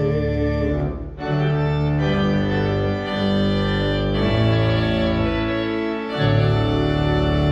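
Church organ playing a hymn's closing bars without singing: full sustained chords over a deep pedal bass, with a brief break about a second in and chord changes every second or two.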